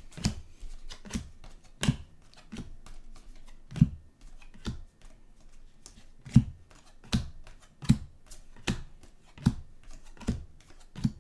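Trading cards being handled and set down one by one on a table, a run of sharp little taps at an uneven pace of about one and a half a second.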